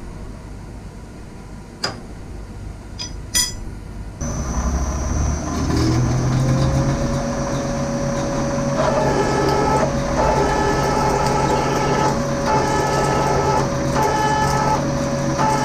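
A few metal clicks as a tool is fitted in a milling machine's spindle, then the mill's motor starts about four seconds in and a drill is fed into aluminium, with a cutting tone that comes and goes in regular pulses from about nine seconds. The spindle has been left at the setting used for earlier drilling, and the drill stalls in the aluminium as the operator tries to power through it.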